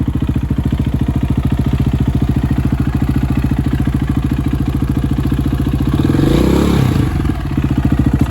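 2004 KTM 450 EXC's single-cylinder four-stroke engine idling steadily on its first start after five years of sitting, with a brief rev about six seconds in. The owner knows its carburetor has issues.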